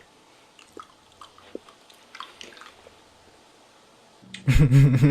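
Faint, wet lip-smacking and mouth clicks close to the microphone: a scattering of small separate clicks. About four seconds in, a man's voice cuts in loudly.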